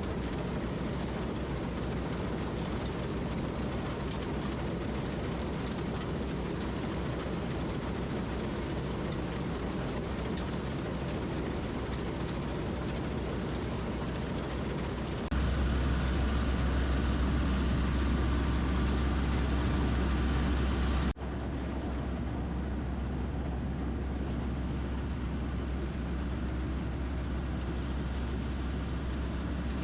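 PREET 4949 Maestro combine harvester with its 102 HP engine running steadily, a deep drone with noise spread across all pitches. About halfway through it gets louder, and a few seconds later it drops out for an instant and comes back quieter.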